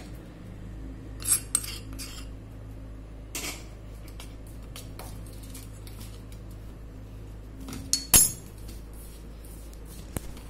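Metal spoon and pan clinking against a stainless-steel mixing bowl as hot oil is worked into wheat flour for dough. There are a few scattered clinks, the loudest about eight seconds in.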